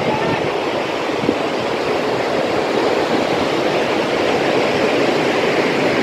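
Mountain stream rushing over rocks: a steady, even rush of water.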